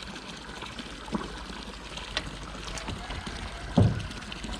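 A few light knocks and a low thump near the end as a screw is worked through the vinyl pool liner against the skimmer opening in the steel wall, over a steady hiss.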